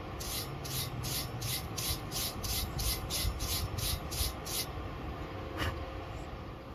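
A hand tool scraping back and forth over metal in quick, even strokes, about three a second and some fifteen in all, then stopping; a single sharp click follows near the end.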